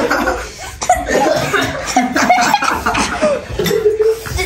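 Several teenage boys laughing and chuckling over one another, mixed with bits of indistinct talk, as they react to eating very spicy noodles.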